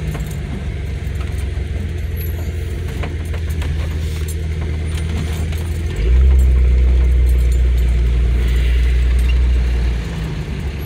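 2001 Jeep Cherokee XJ exhaust, a 2.5-inch side-exit system with a Nexus stainless muffler, heard from inside the cabin with the windows down while driving at low speed. A steady low drone grows louder about six seconds in, holds for about four seconds, then eases back.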